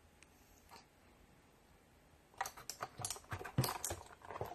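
Keys of an AULA Wings of Liberty mechanical gaming keyboard being typed on. After a quiet start, a quick, irregular run of key clicks begins about halfway through.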